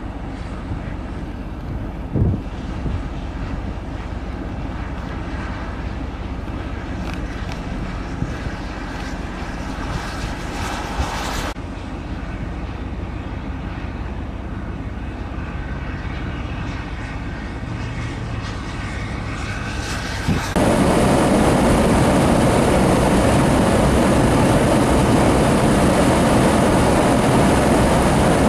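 Steady vehicle engine and driving noise mixed with wind. About 20 seconds in it changes abruptly to a louder, harsher rushing noise.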